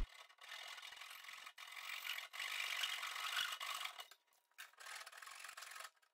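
Hand saw laid flat, flush-cutting protruding wooden splines off a mitered box corner: rasping saw strokes that run steadily, break off about four seconds in, then resume in shorter strokes.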